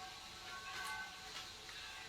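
Faint background music, with a few soft clicks.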